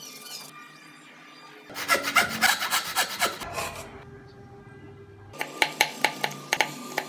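A pencil scratching lines onto a wooden carving blank, then a hand chisel paring into wood in a quick run of short, sharp cuts near the end.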